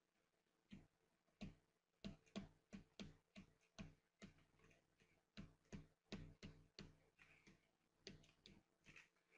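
Faint clicks and taps of a stylus on a pen tablet as words are handwritten, a few irregular taps a second with short scratchy strokes between them.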